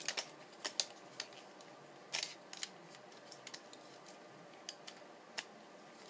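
Light, irregular clicks and taps of an art easel's small clamps and metal parts being handled, with a short cluster of clatter about two seconds in.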